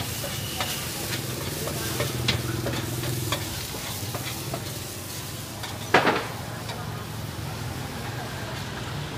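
Noodles sizzling in a large steel wok while a metal spatula scrapes and clicks against the pan, with one loud metallic clang about six seconds in.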